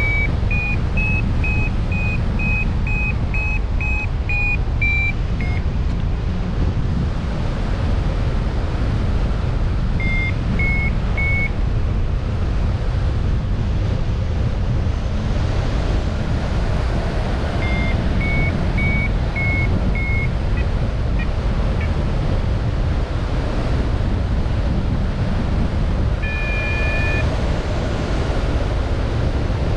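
Steady low rumble of wind buffeting an action camera's microphone. Over it come three runs of short high piping notes, about two a second, and a brief two-note call near the end.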